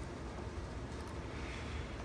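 Faint light ticks of a pick working inside a small dimple lock cylinder, about a second in, over a steady low background hum.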